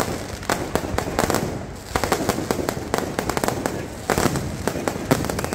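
Fireworks going off: a rapid, irregular string of sharp bangs and crackles, with a brief lull about a second and a half in.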